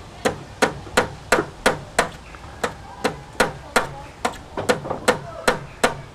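Hand hammer striking the wooden planks of a pallet-built hut, about sixteen sharp blows at a steady two to three a second, with a brief pause a little after two seconds in.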